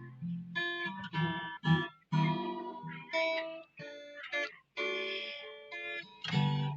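Background music: a guitar-led passage of a Thai pop ballad, with plucked guitar notes in quick runs.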